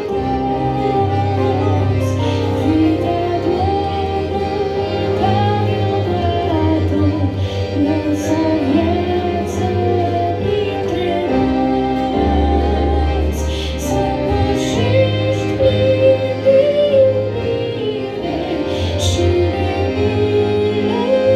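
A woman singing a Christian song of praise into a microphone, over an instrumental accompaniment with steady held bass notes.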